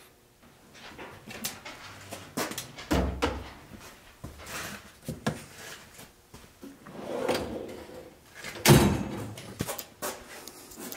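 Metal tool chest drawer being handled, with a series of knocks and clatters from the cordless power tools and batteries inside it. A sharp bang near the end, the loudest sound, is the drawer sliding shut.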